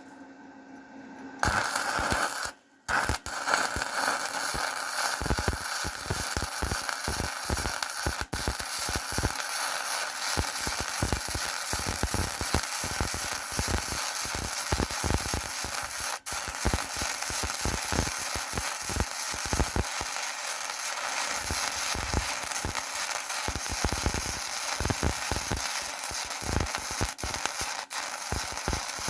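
Gasless MIG welder arc running 0.8 mm flux-cored wire, a steady dense crackling and spitting of the arc. It starts about a second and a half in, breaks off briefly near three seconds, and has a few short pauses later.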